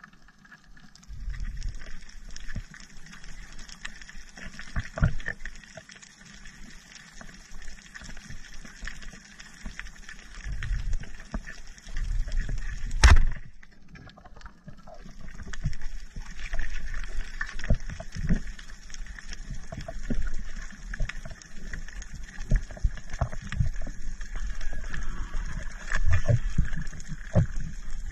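Underwater water noise: an uneven low rumble with scattered knocks and a steady hiss, and one sharp crack about 13 seconds in.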